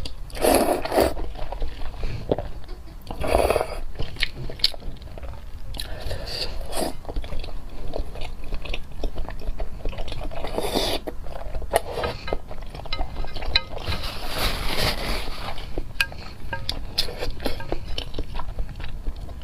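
A person eating close to the microphone: biting and chewing with crunching and many small clicks, and a few longer rushes of noise.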